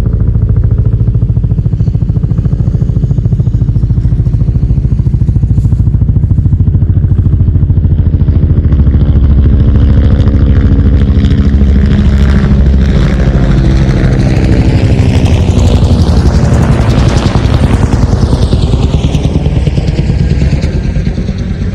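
Military helicopter flying by: rapid rotor chop over a low engine drone. It grows louder and brighter as it approaches, passes closest about three quarters of the way through, then starts to move away.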